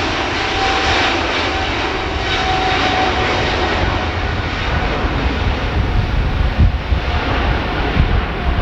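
Boeing 777-300ER's twin GE90 turbofans at takeoff power, a steady jet roar with a faint whining tone that slowly falls in pitch. An uneven low rumble grows in the second half.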